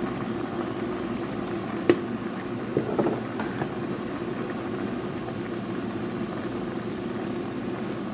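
Curry boiling in a pot, a steady bubbling, with one sharp knock about two seconds in.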